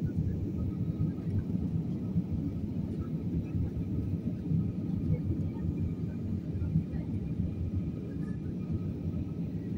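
Jet airliner cabin noise in flight: the steady low rumble of the engines and airflow, with a faint steady engine whine on top.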